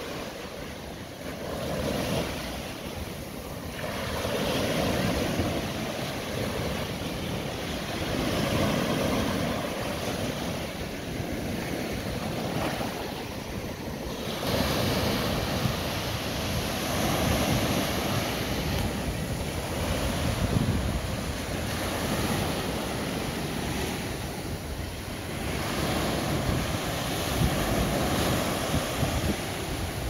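Ocean surf breaking and washing up a sandy beach, swelling and easing every few seconds, with wind rumbling on the microphone.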